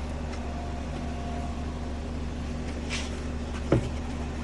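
Plastic retaining clips on a car tail lamp's bulb-access cover being pried loose, with light scraping and one sharp click near the end, over a steady low background hum.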